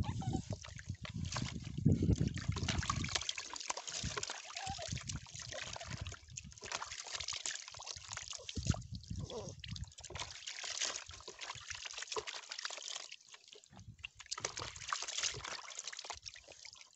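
Water sloshing and splashing in a plastic basin as a puppy is rinsed by hand, then trickling and dripping back into the basin off its soaked coat as it is lifted out.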